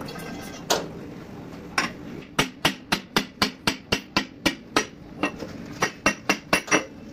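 Hammer blows on a steel liner driver, pressing a cylinder liner down into a diesel engine block's bore: two single strikes, then a quick steady run of about four blows a second, slowing near the end.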